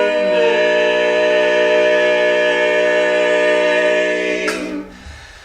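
A sustained vocal chord, layered voices holding the last note of a sung line. It breaks off about four and a half seconds in with a sharp intake of breath, and it is much quieter after that.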